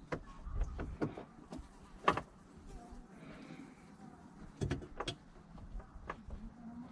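Scattered sharp clicks and knocks of hands working on a car's headlight assembly, handling the bulb and its plastic fittings; the loudest knock comes about two seconds in.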